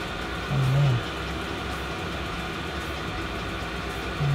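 Diesel night heater running inside a van: a steady mechanical drone of its blower and burner.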